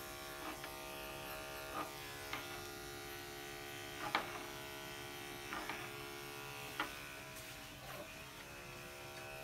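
Andis 5-speed electric pet clipper running with a steady buzz as it shears a Shih Tzu's coat. A few short clicks come every second or so.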